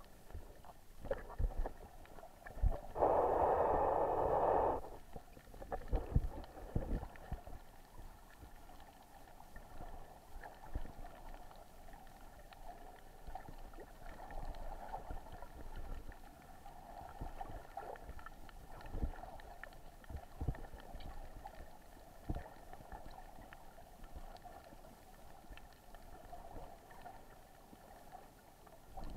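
Muffled underwater sound picked up through a camera housing: scattered low knocks and thumps, and a loud rush of bubbles for a couple of seconds about three seconds in, then a faint steady hum under water noise.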